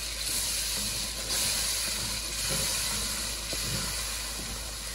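Curry base of fried onions, spices and tomatoes sizzling and hissing in a hot pot as tomato sauce goes in, the hiss getting louder about a second in.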